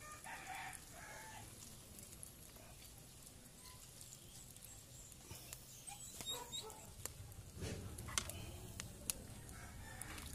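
Faint clucking of chickens, with a few sharp clicks in the last few seconds.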